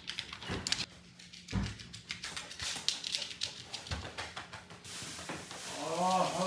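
A Bichon Frise's claws clicking and pattering on a hard floor as she runs about the house, many quick uneven taps. Near the end a short pitched call comes in over a rising hiss.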